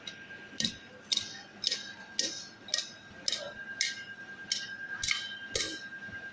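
Hand hammer striking metal on an anvil at a steady pace of about two blows a second, each blow with a short metallic ring, about ten in all. A steady high whine runs underneath.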